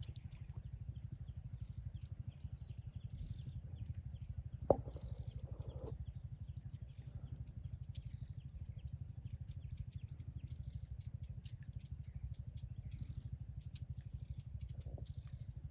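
A low, steady engine-like drone with a fast, even pulse, and one sharp click about five seconds in.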